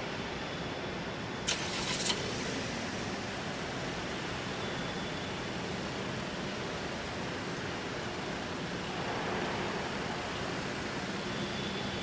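Steady machinery noise of a car assembly plant, with a faint low hum and a few sharp metallic clicks about a second and a half to two seconds in.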